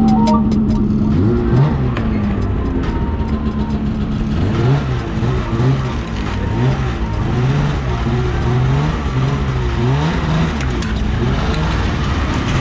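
Polaris IQ 600 LXT snowmobile's two-stroke twin engine running and being revved up and down over and over, about once a second.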